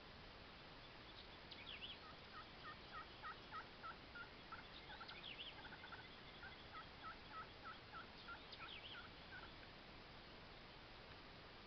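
Faint wild turkey yelps: a long, even run of about three notes a second, with a short break midway, and a few higher bird chirps over them.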